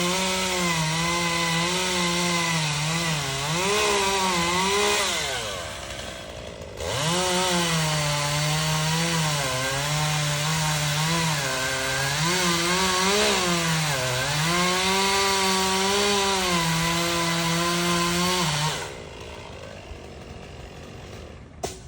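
Chainsaw running at high revs, cutting mango wood, its pitch sagging each time the chain loads up in the cut. It eases off for a couple of seconds about five seconds in, revs back up, and is released near the end.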